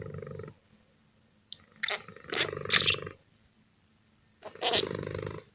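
A cat growling in three rough bursts, each about a second long, with short silent pauses between them.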